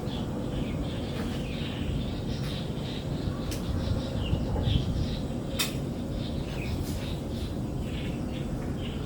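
Small birds chirping in short, scattered calls over a steady low rumble, with a couple of sharp clicks in the middle.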